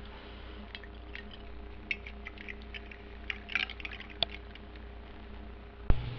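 Tea being poured from a pot into a cup on a saucer: small splashing drips and trickles, busiest a little past the middle, over a steady low hum. Near the end an abrupt knock, after which a different low hum sets in.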